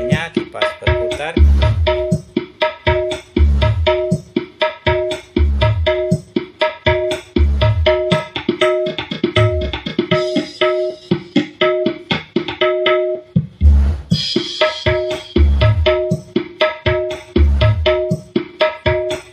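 Recorded music played loud through a karaoke amplifier: a busy drum beat with a deep bass hit about every two seconds under a repeating two-note figure.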